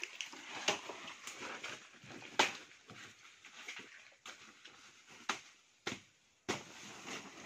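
Irregular rustling with scattered sharp snaps and crackles: plant stalks and dry leaf litter being pulled and handled by hand.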